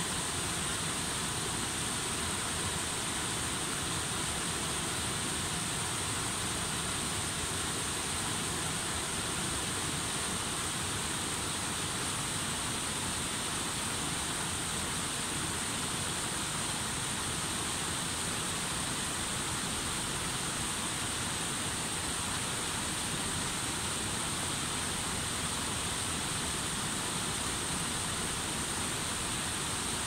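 A small stream spilling over a low rock step and around stones, with a steady, unchanging rush of splashing water.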